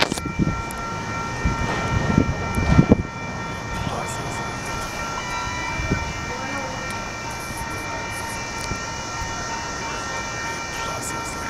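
Union Pacific intermodal stack-train cars rolling past on steel wheels: a steady rumble with several clanks and knocks in the first three seconds, and a steady high-pitched ringing running over it.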